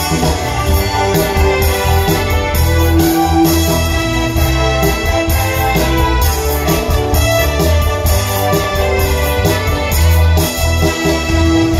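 Live band music through a PA system, with keyboard in organ and electric-piano voicings out front over bass, guitars and a steady drum beat.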